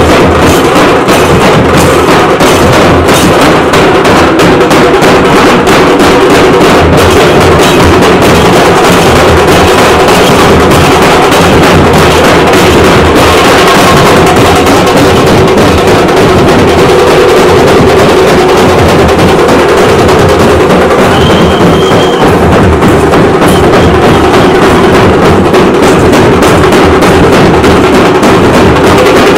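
Troupe of large barrel-shaped dhol drums, a Maharashtrian dhol pathak, beaten with sticks in a dense, steady rhythm. Very loud, near clipping throughout.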